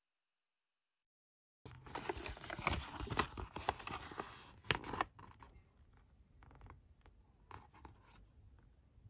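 A folded paper leaflet being unfolded and handled, crackling and rustling with sharp crinkles. The crackling starts about a second and a half in, runs for about three seconds, then fades to a few light crinkles.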